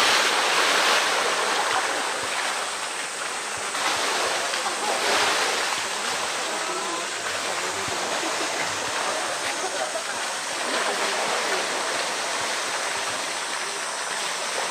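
Pool water splashing heavily as a polar bear plunges in at the start, then sloshing and churning as it moves in the water, over a steady rush of running water.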